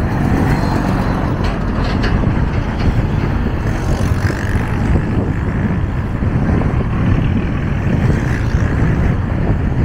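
Steady rumble of a motorcycle on the move, with wind on the microphone and the road noise of surrounding town traffic.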